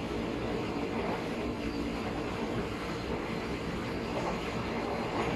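Steady rumble of a KRL electric commuter train running along the line, heard from inside the carriage.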